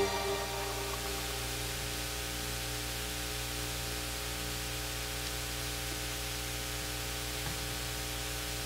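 The last notes of the music die away within the first half second, leaving a steady electrical hiss and mains hum. One faint tick comes near the end.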